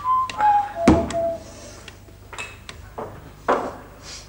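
Whistling that falls in steps and dies away in the first second or so, with a heavy clunk about a second in. After that come a few scattered knocks and clatters of metal pots, ladles and plates.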